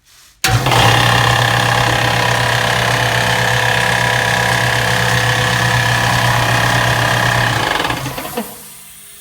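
Electric air compressor on a 240-volt circuit starting suddenly about half a second in, running with a steady hum, then winding down and stopping at about eight seconds. This is its first run on newly installed wiring, and it works.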